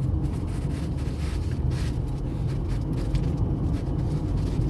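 Car cabin noise while driving: a steady low rumble of road and engine noise.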